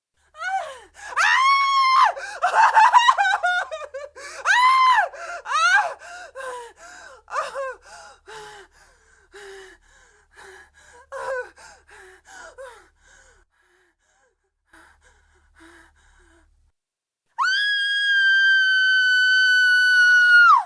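Woman screaming in terror: a run of high screams and gasps that tapers into shorter, fainter cries, then, after a pause, a long held high scream whose pitch sags slightly near the end.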